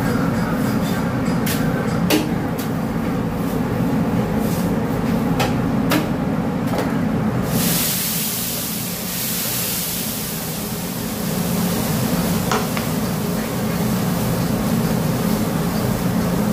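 A metal spatula clicks and scrapes on a flat steel griddle with roti canai cooking on it. About seven seconds in, a sudden loud hiss of steam comes off the hot griddle and fades away over several seconds, over a steady low hum.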